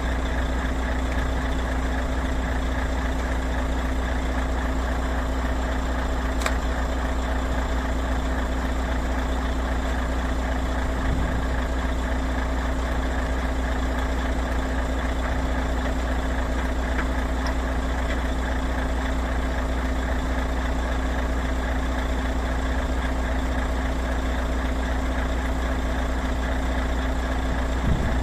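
Heavy truck's diesel engine idling steadily, an even low hum that does not change.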